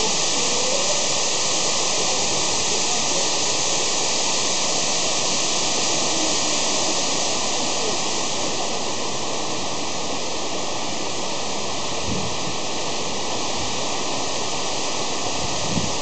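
Waterfall pouring down a rock face, with the water below splashing over stones: a steady, even rush of water.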